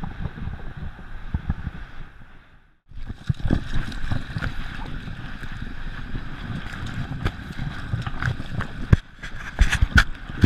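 A Gordon Setter running through shallow water on wet sand, heard from a camera on its collar: splashing and quick paw thuds with knocks against the camera, under a low rumble. A brief near-silent drop about three seconds in, and several sharp knocks near the end.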